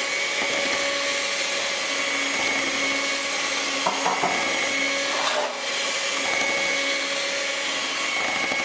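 Electric hand mixer running at a steady speed with a constant motor whine, its beaters churning cake batter in a glass bowl. The sound briefly dips about halfway through.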